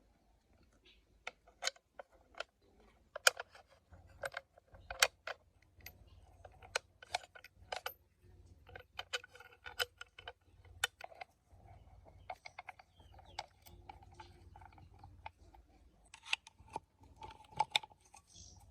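Irregular sharp metallic clicks and clinks, coming in loose clusters, of metal parts being handled by hand. No engine is running.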